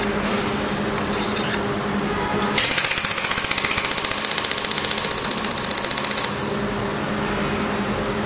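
Pulsed laser welder firing a rapid, even train of sharp snapping shots for about four seconds, starting a few seconds in, with a high whine under the shots. A steady low hum runs before and after.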